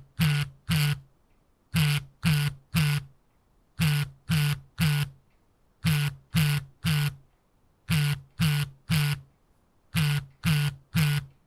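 Smartphone vibrating on silent mode: short buzzes in groups of three, with a pause of about a second between groups, repeating steadily.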